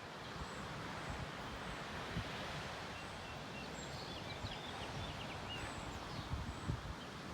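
Steady outdoor background noise with a few short, faint bird chirps about three to six seconds in, and some low thumps near the end.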